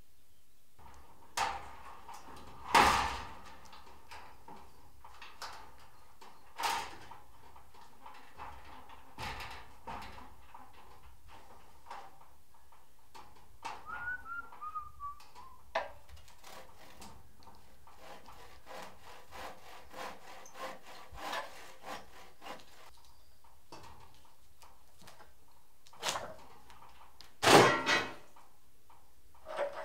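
A handsaw cutting and scraping at an old charred timber beam, in short irregular strokes with scattered knocks and rubbing of wood. Two louder thuds stand out, one about three seconds in and one near the end.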